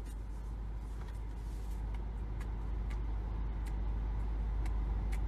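Low steady rumble of a car's engine heard inside the cabin, with a few faint clicks.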